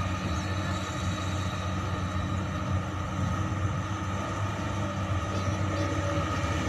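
Hydraulic crawler excavator's diesel engine running steadily under load as the arm digs into the earth and lifts a full bucket.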